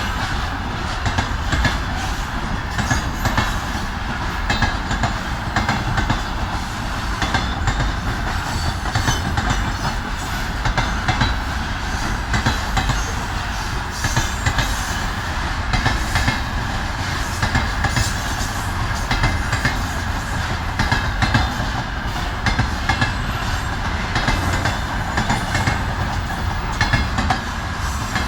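Freight train wagons rolling past, their wheels clattering rhythmically over the rail joints above a steady rumble.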